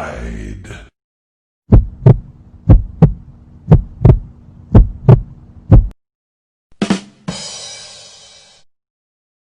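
Heartbeat sound effect: about five double thumps, roughly one pair a second, over a faint low hum. Near the end a short knock is followed by a hiss that fades out.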